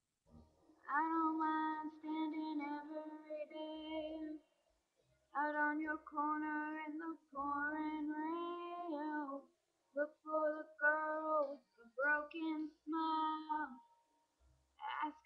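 A single high-pitched voice singing a melody with no accompaniment, in phrases of one to two seconds separated by short breaths.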